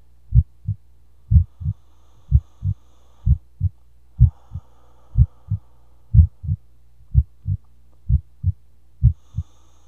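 Heartbeat sound effect: a steady double thump, lub-dub, about once a second over a low steady hum.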